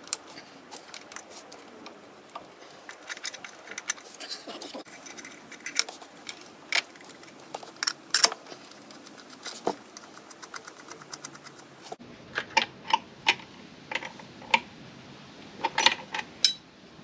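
Irregular small metallic clicks, clinks and taps of hand tools and parts as a throttle body is fitted and its sensor connectors are plugged in on an engine that is not running.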